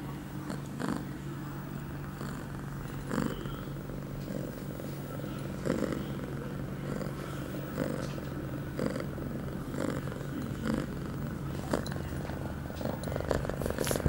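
A female ragdoll cat in heat purring steadily close to the microphone while being stroked, with brief scattered rustles through the purr.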